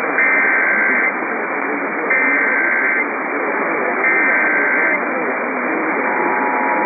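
Emergency Alert System SAME header: three bursts of warbling data tones, each about a second long and about two seconds apart, over steady radio static. About six seconds in, the steady two-tone EAS attention signal begins, the signal that opens the message that follows, here a cancellation.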